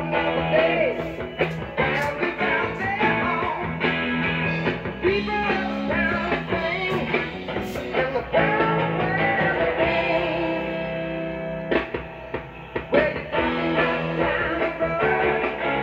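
A rock-and-roll song with singing and guitar, played from an external audio device through the audio input of a 1938 RCA Victor K62 console radio and out its speaker, with little treble. The owner reckons the set's weak 6F6 output tube gives it only about 1 watt.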